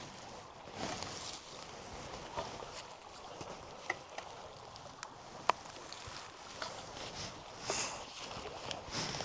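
Hand work on an old wire sheep fence: rustling with scattered light clicks and taps, and one sharper click about five and a half seconds in.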